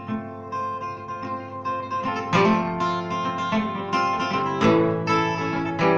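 Solo acoustic guitar with a capo, played with no singing. Quiet picked notes give way to fuller, louder strums from about two seconds in.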